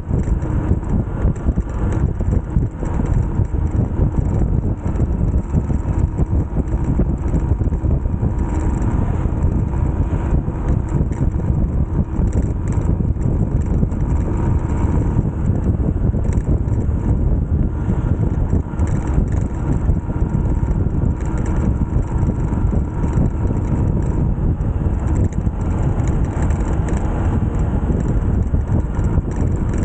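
Motorcycle riding at speed: heavy wind buffeting on the microphone over steady engine and road noise.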